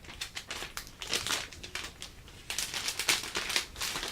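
Packaging crinkling and rustling in irregular bursts as a new keyboard is unwrapped and lifted from its box.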